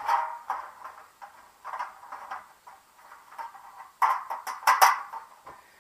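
Thin sheet-metal patio heater hood sections being handled and fitted together at a joint: irregular scraping and rattling of the metal, with a cluster of sharper clicks about four seconds in.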